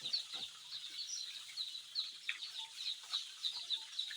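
A brood of day-old chicks peeping: a dense, continuous chorus of short, high cheeps.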